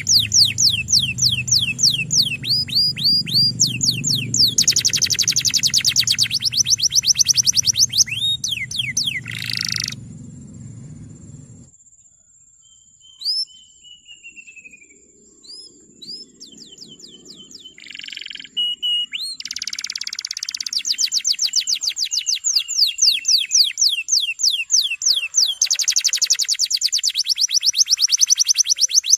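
Male domestic canary singing long rolling trills of rapid repeated notes, broken by a few seconds near the middle with only a few thin whistles, then trilling again. A low background rumble underneath cuts off suddenly about twelve seconds in.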